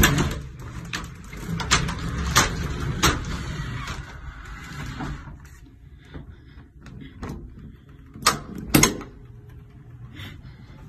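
Interior doors being handled up close: sharp clicks and knocks from a folding door and a doorknob latch, with rustling as the phone is carried through the first few seconds. Two louder knocks come about eight seconds in.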